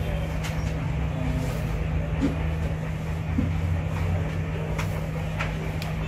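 Steady low background hum with rumble beneath it and a few faint clicks.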